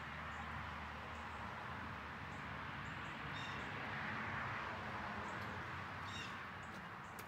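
Small birds chirping in short bursts several times, over a steady outdoor hiss and low hum.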